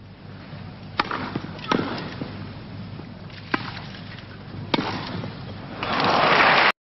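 Tennis ball struck by racquets in a rally: a serve about a second in, then a few more sharp hits, with a crowd murmuring throughout. Near the end the crowd breaks into applause, which cuts off suddenly.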